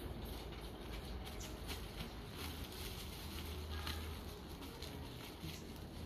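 Plastic bag of flour crinkling and rustling as it is twisted shut and tied, a string of small irregular crackles over a low steady rumble.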